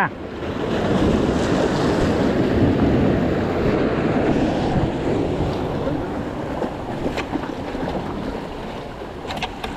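Surf washing and breaking against jetty rocks, with wind buffeting the microphone. The wash swells in the first few seconds and eases off toward the end.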